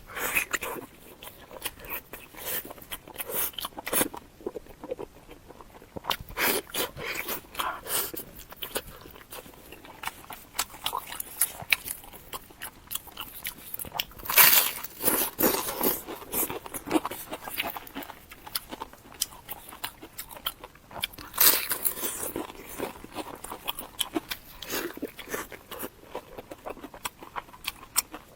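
Close-miked eating sounds: crunchy food being bitten and chewed, a dense run of irregular crunches with a couple of louder bites about halfway through and again later on.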